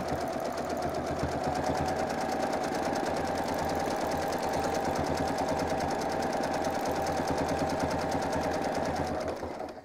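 Domestic sewing machine running steadily while free-motion quilting through a quilt, the needle going up and down in a fast, even rhythm; it slows and stops near the end.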